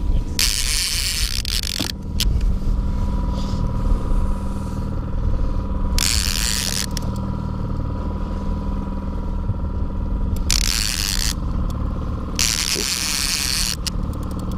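A fishing boat's outboard motor runs steadily at trolling speed with a low rumble. Four short bursts of hiss rise over it.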